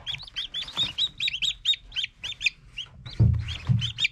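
Newly hatched chicken chicks peeping: many short, high cheeps in quick succession, overlapping from several chicks. Two low thumps come about three seconds in.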